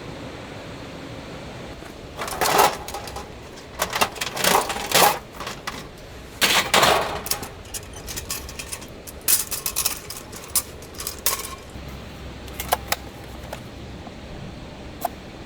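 Clattering and knocking of handled objects in several bursts, then a few separate ticks near the end.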